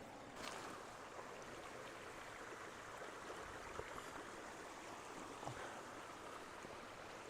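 A mountain creek running: a steady, even rush of flowing water, with a few faint clicks over it.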